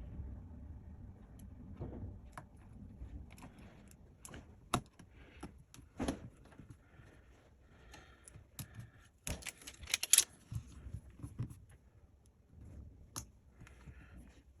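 Small clicks, taps and light handling noises of hands and tools working on the phone at the bench while the new battery is fitted, irregularly spaced, with a quick run of louder clicks about nine to ten seconds in.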